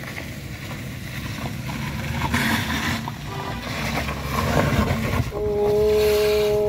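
Vehicle engine running hard, the rumble growing louder, then a horn sounding one steady note for about a second and a half near the end.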